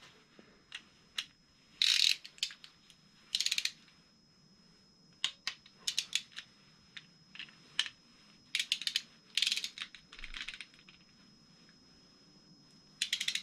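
Small hand ratchet with a socket extension clicking in about half a dozen short, fast bursts, with a few single clicks in between, as the bolts of a VR6 engine's lower timing chain guide are run down.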